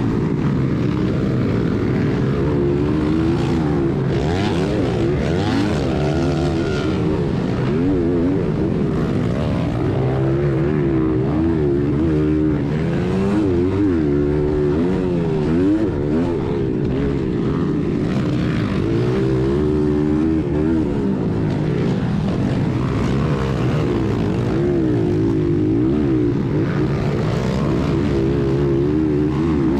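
1996 Honda XR100R's single-cylinder four-stroke engine under race load, its revs rising and falling again and again every second or two as the rider works the throttle and gears.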